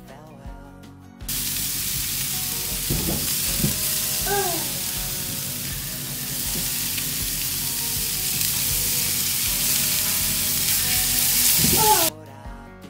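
Pork sizzling loudly on a charcoal grill: a dense, steady hiss that starts abruptly about a second in and cuts off suddenly near the end.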